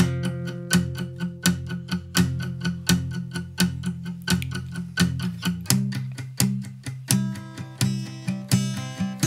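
Acoustic guitar strumming a steady rhythm, about two or three strokes a second, starting suddenly as the song begins. The chord changes about six seconds in.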